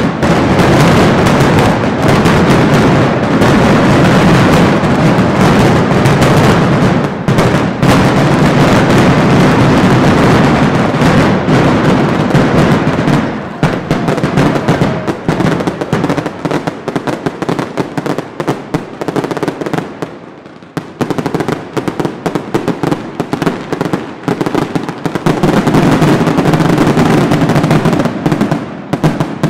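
Mascletà firecrackers going off in a very loud, dense barrage of bangs that merge into one continuous crackle. About halfway through the barrage thins to sparser, irregular cracks, then builds back to a dense barrage near the end.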